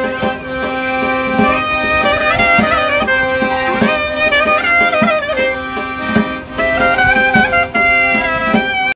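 A street trio playing traditional music live on clarinet, accordion and a hand drum. The clarinet carries an ornamented, sliding melody over the accordion's held chords and a steady drum beat.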